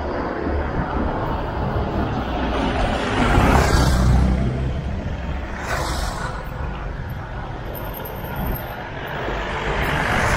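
Wind rushing and rumbling over the microphone of a moving bicycle, swelling about a third of the way in. A pickup truck's engine passes close by near the end.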